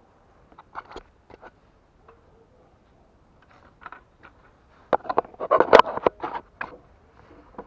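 Light scattered clicks of hand tools being handled, then, about five seconds in, a burst of sharp metallic clinks and clatter lasting around a second and a half.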